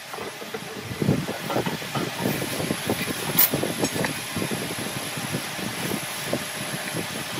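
Steel square and pen worked over a rough-sawn wooden board: irregular light scraping and knocking, with one sharp click about three and a half seconds in. A thin steady high whine joins about two seconds in.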